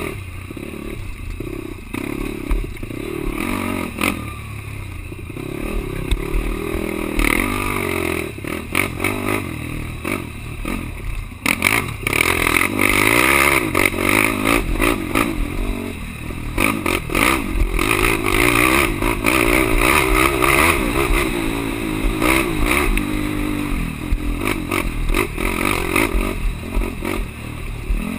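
Enduro racing quad's engine revving up and down, mixed with clattering and scraping, and louder from about twelve seconds in.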